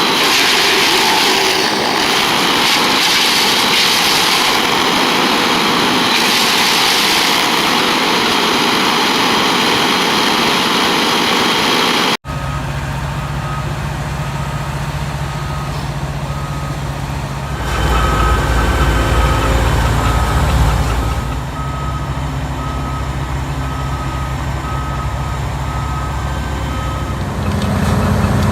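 A wood chipper running loud, its chipping noise even and dense. After a sudden cut, a heavy diesel machine runs with a steady reversing alarm beeping over it, the engine rising for a few seconds partway through.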